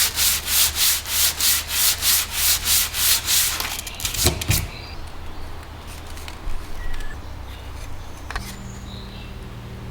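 Hand sanding with sandpaper in quick back-and-forth strokes, about four a second, stopping about halfway through. A few light knocks and handling sounds follow.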